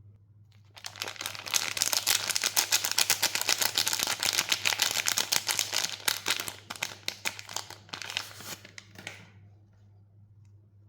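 Soap bar's wrapper being crinkled and torn open by hand: a dense run of crinkling that starts about a second in and dies away near nine seconds.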